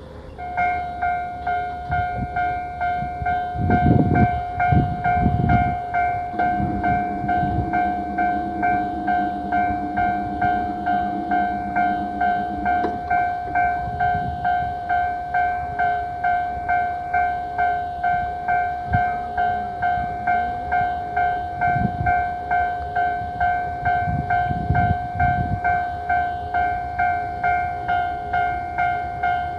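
Japanese railway level-crossing alarm starting about half a second in, then sounding its steady repeating tone at about two strikes a second. Low rumbles come up underneath a few times, and a steady low drone runs from about six to thirteen seconds.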